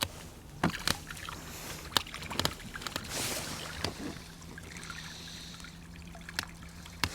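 Water trickling and sloshing, with scattered knocks and clicks, as lily stems and weed are pulled from a fouled boat outboard motor.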